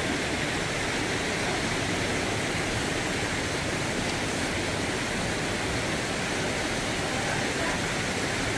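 Steady rush of a fast-flowing stream.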